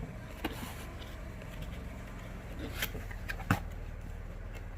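Cardboard packaging being opened by hand: a few scattered clicks and rustles over a steady low hum.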